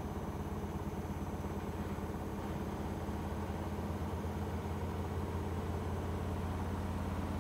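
Magic Chef MCSCWD20B3 ventless combo washer-dryer at maximum spin with a load of wet towels: a steady low hum with a fast, even pulse from the spinning drum, running with only slight vibration.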